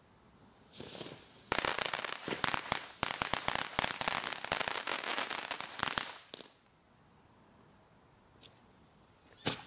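Low-noise F2 ground firework spraying sparks: a short hiss about a second in, then dense crackling for about four and a half seconds that dies away. A single sharp bang near the end.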